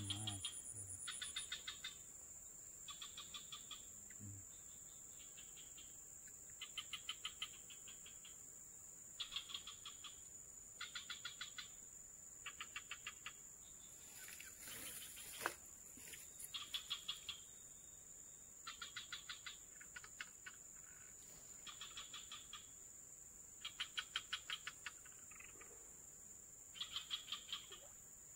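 Steady high insect drone, with short trains of rapid clicking that recur every second or two and one sharp click about halfway through.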